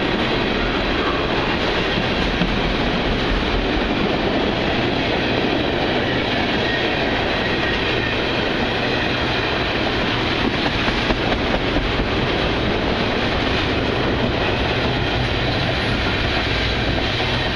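Long Union Pacific freight train of oil tank cars rolling steadily past on the rails, a continuous rumble and rattle of cars going by.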